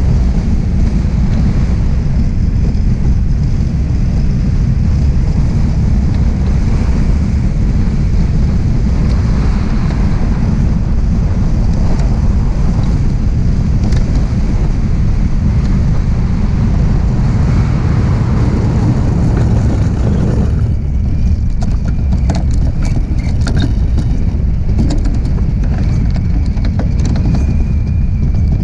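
DN iceboat sailing at speed: a loud steady rumble of wind buffeting the microphone and the runners travelling over the ice. About two-thirds of the way through the rushing thins and a run of sharp ticks and clicks comes through.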